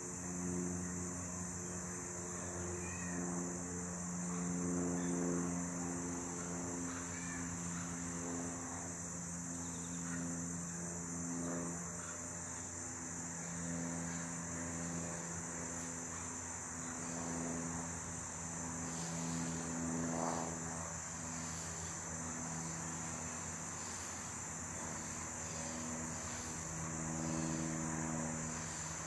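Honeybees from an aggressive colony buzzing in flight, a low hum that swells and fades as bees pass close, bending up and down in pitch. Under it runs a steady high-pitched whine.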